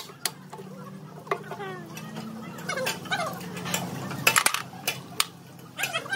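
Hand tools clinking on steel truck axle parts: a scatter of sharp metallic taps, with a quick cluster of them about four seconds in.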